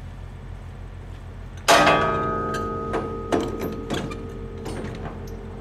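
The steel crank handle of a semi-trailer's landing gear clanks loudly as it is taken down and swung out, ringing and dying away over a couple of seconds. Lighter clicks and knocks follow as the handle is worked. A truck's diesel engine idles underneath as a steady low hum.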